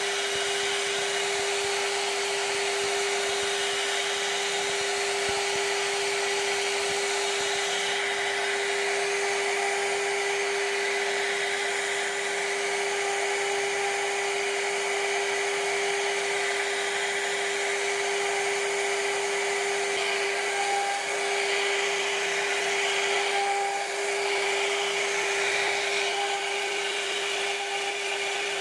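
CNC router spindle running steadily, its cutter carving a relief pattern into a wooden door panel: a constant whine over the hiss of the bit cutting the wood.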